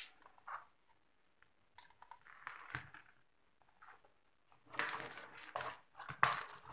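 Handling noise from amplifier circuit boards and their wires being moved about by hand on a workbench: irregular rustles, scrapes and light clicks, loudest in the last two seconds.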